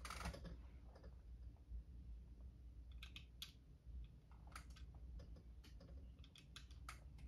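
Faint, scattered clicks of small plastic LEGO pieces being handled and pressed onto a LEGO plate, a handful of them from about three seconds in.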